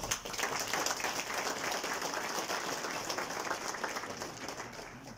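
Crowd applauding, the clapping slowly thinning and fading toward the end.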